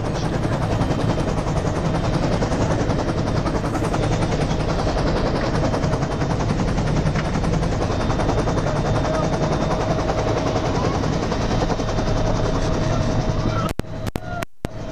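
UH-1 Huey helicopter's turboshaft engine and two-bladed main rotor running on the ground, heard inside the cabin as a loud, steady drone with a rapid, regular chop. A steady whine grows stronger about two-thirds of the way in, and the sound cuts out in several short gaps near the end.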